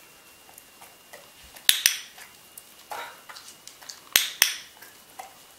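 A dog-training clicker clicked twice, about two and a half seconds apart. Each click is a quick double snap, as the clicker is pressed and released, and it marks the dog holding the trick position. Softer rustling and small ticks come between the clicks.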